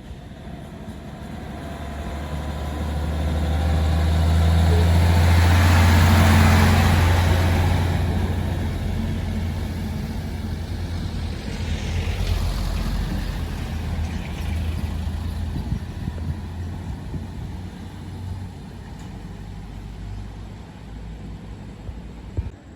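UD Quester truck's diesel engine labouring uphill with a deep, loud drone. It swells to a peak about six seconds in, then eases off, with a smaller rise around twelve seconds.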